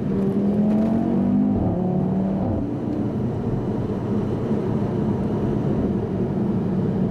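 2015 Audi RS3's turbocharged 2.5-litre five-cylinder engine heard from inside the cabin, rising in pitch under acceleration for about two and a half seconds. It then drops back and runs steadily at cruising speed with road rumble.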